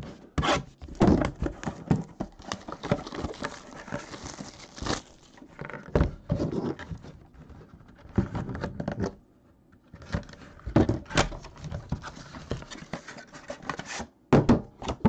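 Handling and unwrapping a shrink-wrapped cardboard box of hockey cards: plastic wrap crinkling and scraping, with irregular sharp knocks of the box against the table and a short lull a little past halfway.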